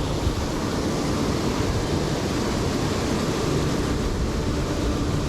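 Steady rushing of a fast-flowing river, an even wash of water noise with no breaks.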